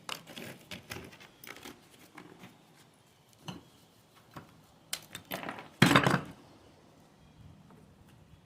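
Wet mortar being scraped and packed into a gap between stones with a hand tool: an uneven run of short scrapes and taps, with a longer, louder scrape about six seconds in.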